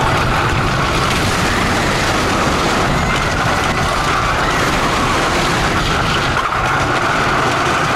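Tremors wooden roller coaster train running fast along its wooden track: a loud, steady rush of wheel noise and air.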